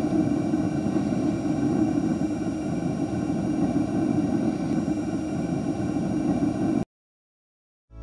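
The propane burner of an Atwood (Dometic) RV water heater is running, a steady low rushing noise. The burner is staying lit after its ignition control board was replaced. The sound cuts off abruptly near the end.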